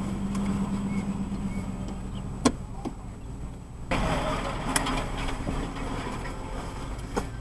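Car engine and road noise heard from inside the cabin while driving slowly, a steady low hum that grows louder about four seconds in, with a few sharp clicks.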